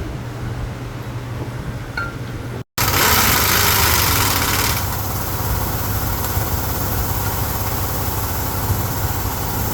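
A steady low mechanical hum. It cuts out for a moment near the start, then returns with a loud rushing hiss for about two seconds before settling back to the hum.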